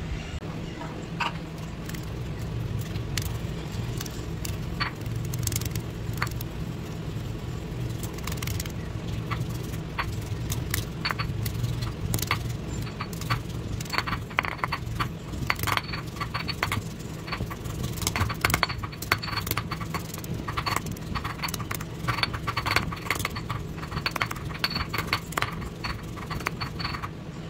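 Stone pestle pounding garlic cloves in a stone mortar: sharp clinks and knocks of stone on stone, sparse at first and faster and denser from about the middle on, over a steady low hum.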